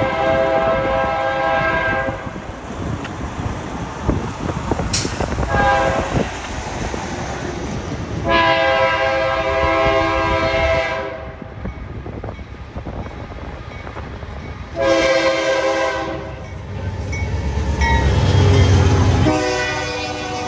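Multi-note air horn of a GE Dash 9-44CW diesel-electric locomotive leading a freight train, sounding a series of warning blasts for a grade crossing: long, short, long, short, then another long one starting near the end. Shortly before the last blast the deep rumble of the diesel engines swells as the locomotives come past close by.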